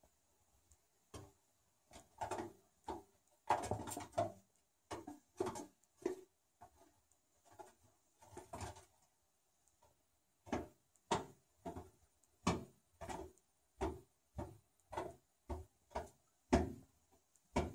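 Short sharp noises from an animal in the duct beneath a floor heating register, irregular at first, then a steady run of nearly two a second in the second half.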